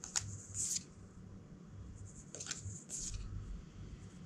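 Thin card game pieces sliding and brushing against each other as they are handled: four short rustling strokes in two pairs, near the start and about two and a half seconds in.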